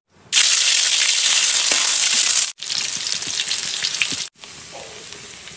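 Hot oil in a wok sizzling hard as chopped aromatics are dropped in, with a few light clicks of a spatula. The sizzle starts suddenly, then cuts off abruptly twice and comes back quieter each time.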